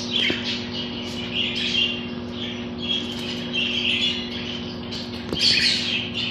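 Budgerigar chirping and warbling in quick, near-continuous runs, over a steady low hum.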